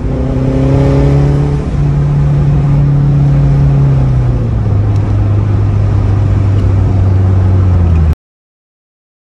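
2011 Mazdaspeed3's turbocharged 2.3-litre four-cylinder running through a CPE downpipe and turboback exhaust, heard from inside the cabin while driving: a steady exhaust drone whose pitch sinks slowly over the first few seconds and then holds. It cuts off abruptly near the end.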